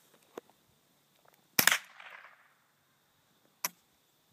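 A single shot from a Ruger 10/22 semi-automatic .22 rifle, a sharp crack with an echo trailing off for about a second, followed about two seconds later by a fainter sharp crack.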